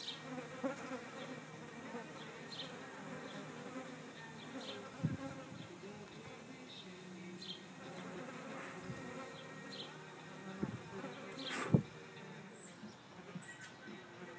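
Green bottle flies and yellowjackets buzzing at close range, a steady low hum of wingbeats. A single sharp click about twelve seconds in is the loudest sound, with faint short high ticks scattered throughout.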